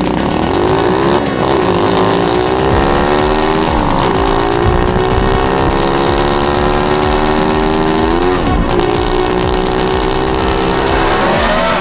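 Pit bike's small single-cylinder engine accelerating up through the gears. The pitch climbs steadily in each gear and drops at three upshifts: about a second in, about four seconds in and about eight and a half seconds in.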